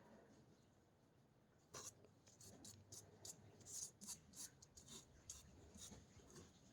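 Faint scratching and rubbing from handling small material, a run of light clicks starting about two seconds in.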